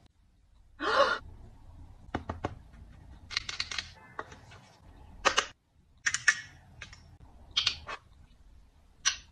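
Close-up makeup handling sounds: unevenly spaced sharp clicks and taps of plastic compact and palette cases and a lip gloss tube, with brief brushing and rustling in between.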